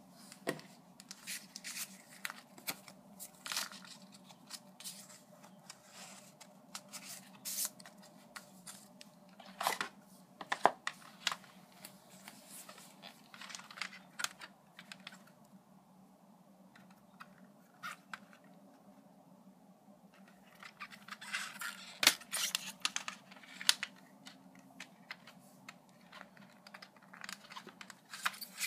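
Handling noise from a stack of glossy photo cards and a plastic CD jewel case: rustling, sliding and light tapping, with scattered sharp plastic clicks. The loudest click, about two-thirds of the way through, fits the jewel case being opened.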